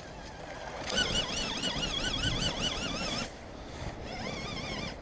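Electric motor of a radio-controlled rock crawler truck whining under load as it climbs, the high pitch wavering up and down several times a second as the throttle is worked. It drops away briefly just after three seconds and picks up again.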